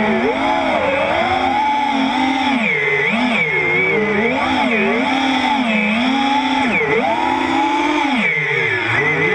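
Brushless motors and propellers of an FPV freestyle quadcopter, heard from its onboard GoPro, whining loudly, the pitch swooping up and down about once a second as the throttle changes and dropping lowest near the end.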